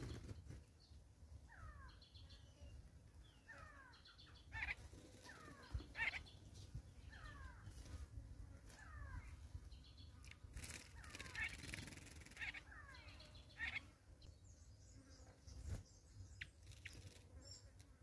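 Wild birds calling: one bird repeats a short down-slurred note about every one and a half seconds, among scattered higher chirps.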